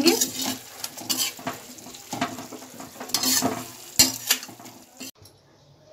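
Stuffed bitter gourds sizzling in hot oil in a kadhai while being stirred, with a utensil scraping and clinking against the pan several times. The sound cuts off abruptly about five seconds in.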